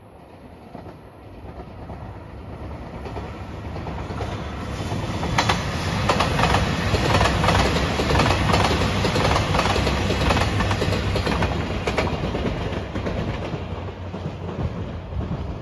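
JR Shikoku 2700 series diesel limited-express train passing by. Its engine rumble grows louder as it approaches, the wheels click rapidly over rail joints as the cars go past, and the sound fades as the train draws away.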